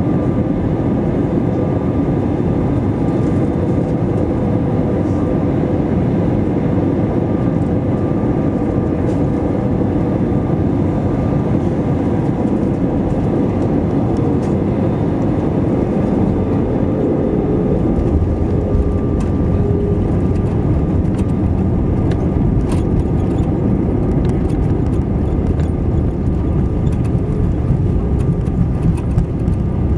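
Cabin noise of an Airbus A320 landing, heard over the wing: a steady rush of jet engines and airflow on short final. About eighteen seconds in it turns to a deeper rumble as the aircraft rolls on the runway, with scattered rattles and knocks, and the engines go into reverse thrust near the end.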